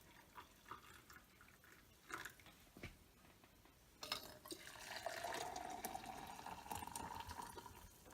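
Brewed coffee pouring from a glass French press into a cup, starting about halfway through with a pitch that slowly rises as the cup fills. Before the pour there are a few light clicks and taps.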